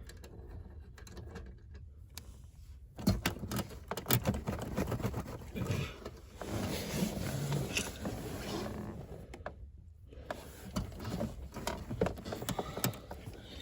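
Hands working small screws and hardware into a car's mounting panel with an Allen key: scattered sharp clicks and taps with rustling, starting about three seconds in after a quiet opening.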